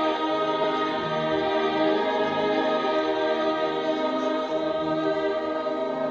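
Operatic tenor singing with orchestral accompaniment, on long sustained notes.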